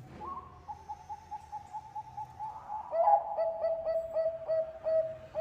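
Zebra dove (perkutut bangkok) cooing: a quick run of short, soft notes, then from about three seconds in a louder, lower series of rhythmic coos ending on a held note.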